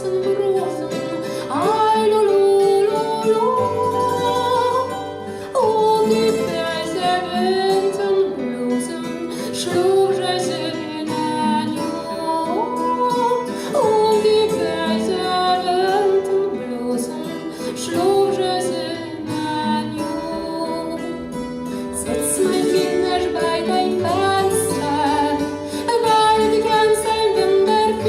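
Background music: a song with a woman's sung melody over plucked guitar accompaniment.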